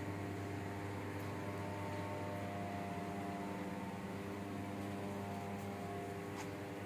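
Steady low mechanical hum with a constant hiss, as of indoor air handling, with a few faint ticks.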